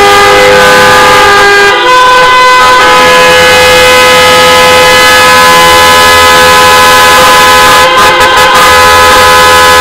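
Many car horns honking together in a loud, continuous, overlapping chorus of several steady tones. The convoy's cars are sounding their horns at once.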